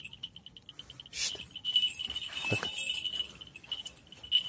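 Small bells jingling quietly and continuously, with a brief rustle about a second in and a short low sound about halfway through.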